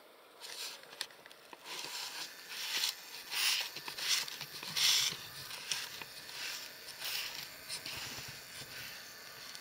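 Irregular rustling and crackling that swells and fades in short surges, with a few sharp clicks.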